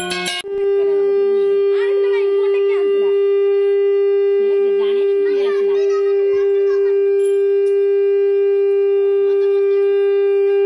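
Conch shell (shankha) blown in one long, steady, loud note, starting about half a second in and held without a break, sounded as part of a Hindu puja.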